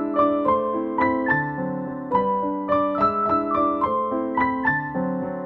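Background piano music: a melody of struck notes, about two or three a second, over lower held notes.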